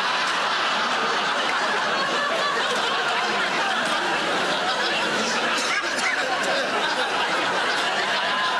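Studio audience laughing, one long, steady laugh.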